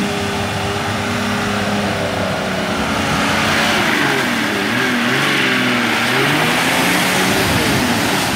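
Nissan 4x4's engine revving under heavy load in deep clay mud. Its pitch is steady at first, then rises and falls repeatedly from about three seconds in as the throttle is worked.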